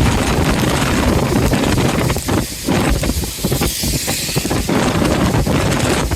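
Strong thunderstorm wind gusting and buffeting the microphone over heavy rain, in a loud, uneven rush with brief lulls between gusts.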